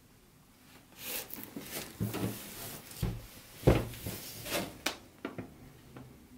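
Large cardboard box being handled and turned over on a table: scraping and rustling of cardboard with several knocks, the loudest about three and a half seconds in.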